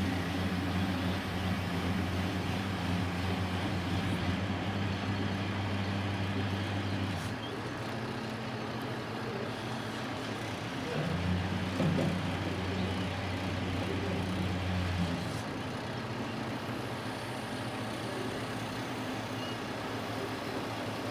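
A heavy vehicle engine running steadily at the construction site, a low hum that fades out about seven seconds in and comes back for a few seconds past the middle.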